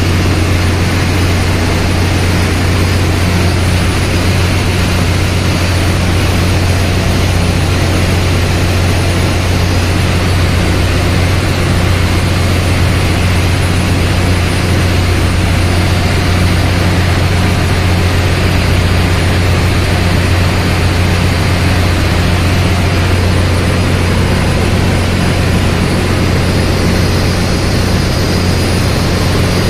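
Loud, steady drone of a ship's engine-room machinery, with a strong low hum under a constant rushing noise.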